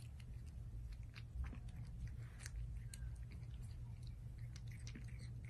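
Kitten chewing and biting on a treat held to its mouth: faint, irregular little clicks over a low steady hum.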